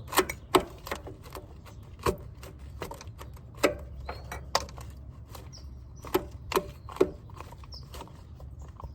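A spoon knocking and clinking against a cup as a thick drink is stirred: sharp, irregular taps, several close together near the start and again about two-thirds of the way through, over a steady low hum.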